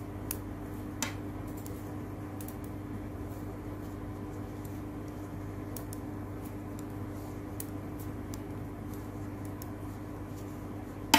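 Knitting needles giving faint scattered clicks and taps as stitches are worked across a row, with one sharper click near the end, over a steady electrical hum.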